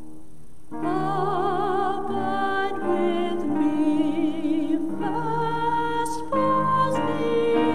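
A hymn: a singer with a strong vibrato comes in just under a second in over a sustained keyboard accompaniment and sings a slow line.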